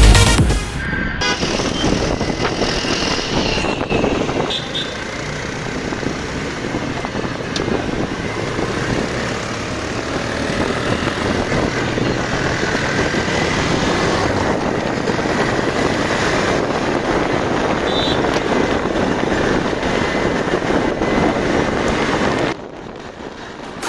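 Street traffic with motor vehicles running: a steady wash of engine and road noise that drops away sharply near the end.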